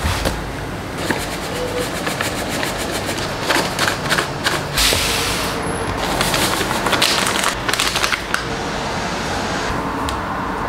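Kitchen clatter of a meal being put together: many small clicks and knocks of utensils and containers, with a short rush of noise about halfway through.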